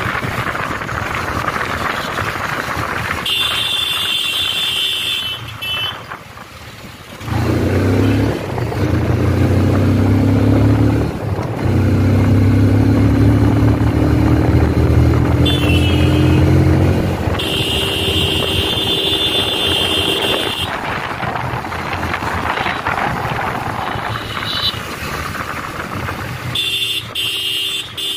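Motorcycle riding in city traffic: wind rushing over the microphone, then the engine pulling hard with its pitch rising, a gear change breaking the climb partway. Vehicle horns honk several times, the longest about two-thirds of the way through.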